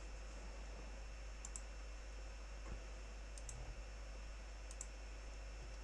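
Faint computer mouse clicks, three pairs of quick ticks about a second and a half apart, over a low steady hum.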